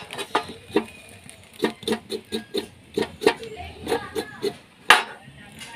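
Knife scraping the scalded hair off a goat trotter against a wooden board in quick, repeated strokes, at times about four a second, with one sharper knock near the end.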